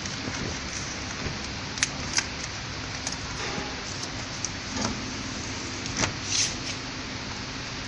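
Steady hiss of background noise with a few sharp clicks and light metallic knocks: two close together about two seconds in, and two more about six seconds in, from handling around the frame of a packaging machine.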